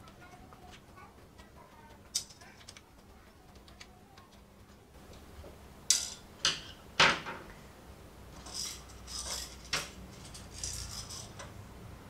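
Small hard clicks and taps of a screwdriver and tiny screws being handled around a plastic remote-control case. It is quiet at first, then come four sharp clicks in the second half, with soft rustling of fingers on plastic between them.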